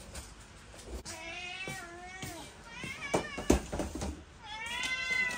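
Several house cats meowing repeatedly, calling for their breakfast, with a long drawn-out meow near the end. About three and a half seconds in there is one sharp thump, as of a cat landing on the dining table.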